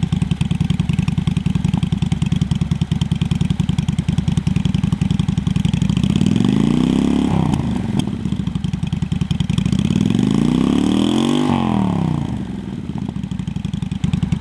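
Honda Shadow VT600's V-twin idling loud through a straight MCJ flap exhaust with no dB-killer, flap closed. It is revved twice, about six and ten seconds in, and each time the pitch rises and falls back to idle.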